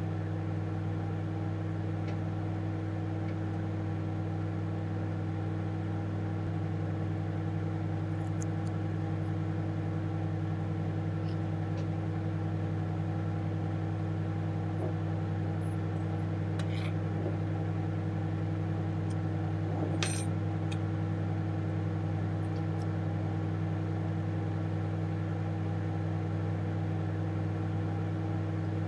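A steady, unchanging electrical-sounding hum with several overtones, and a few faint light clicks about two-thirds of the way through.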